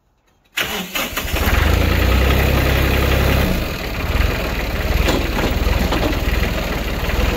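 New Holland tractor engine starting about half a second in, then running, its heavy low rumble easing a few seconds later.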